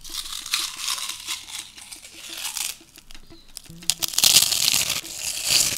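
Crunching and chewing a mouthful of 3D corn snacks close to the microphone, the crunching loudest about four seconds in.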